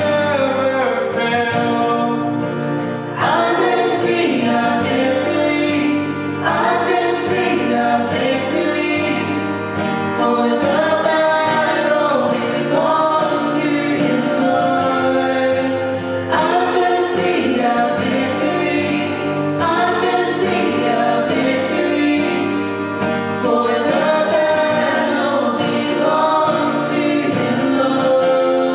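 Worship song: several voices singing long held notes over instrumental backing, with a new phrase starting every few seconds.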